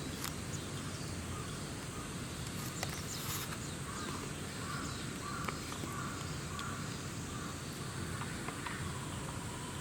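Crows cawing faintly, a string of short caws repeated about every half second through the middle, over steady outdoor background noise with a few light clicks.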